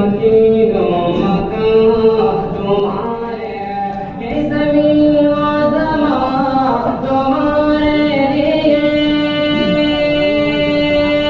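A man singing an Urdu devotional verse through a microphone and loudspeaker, drawing out long held notes, with a pitch change and a higher sustained note from about four and a half seconds in.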